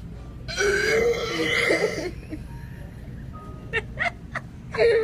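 A toddler's voice: one long sound made with her mouth against a glass jar, lasting under two seconds, then a few short clicks.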